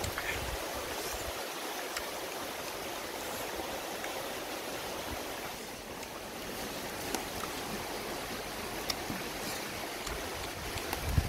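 Steady rushing background noise, like flowing water, with a few faint clicks of a metal fork against a plate.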